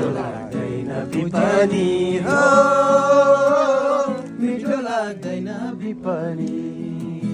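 Men singing together to a strummed acoustic guitar, with one long held note in the middle.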